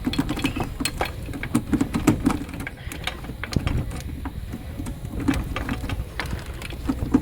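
Irregular clicks, knocks and rattles of plastic parts being screwed back into a car's headlight housing by hand, over a steady low rumble.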